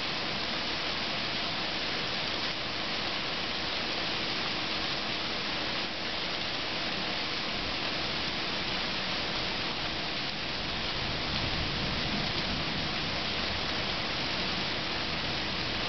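Rain pouring steadily in a thunderstorm, an even hiss that does not let up.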